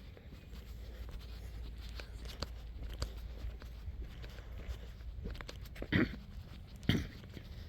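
Footsteps on a dusty dirt road, faint scuffs and crunches with two heavier steps about a second apart near the end, over a low steady rumble.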